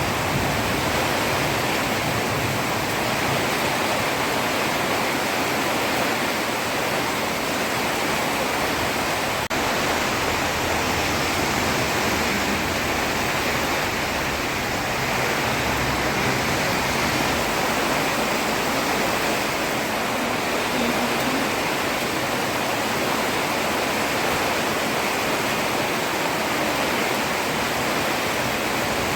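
Heavy rain falling steadily on a road: a dense, even hiss with no let-up.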